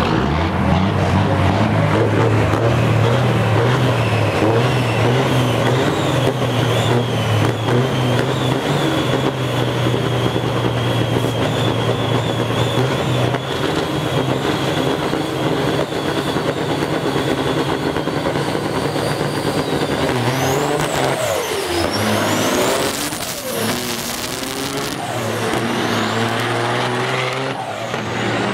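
Two semi-truck diesel engines running hard at the start line with a steady drone and a high whistle, then launching in a drag race about 20 seconds in, their pitch rising again and again as they pull through the gears.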